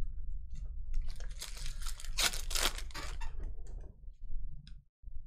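Foil trading-card pack wrapper being torn open and crinkled by hand. The crackling tear is loudest about two seconds in, followed by a few small rustles and clicks.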